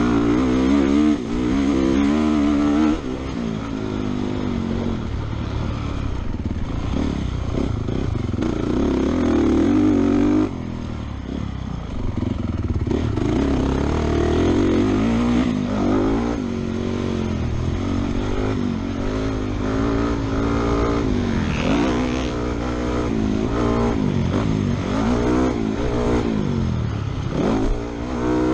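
Honda motocross bike's engine revving hard and backing off again and again as it laps the track, the pitch climbing and falling with the throttle, with sudden drops in loudness where the throttle is chopped about 3 and 10 seconds in. Heard from a helmet-mounted camera.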